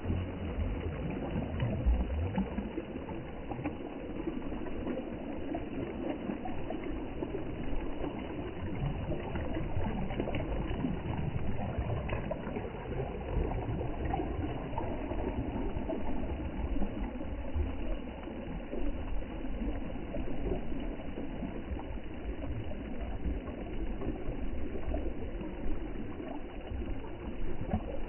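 Steady rushing noise of sea water with a low rumble underneath.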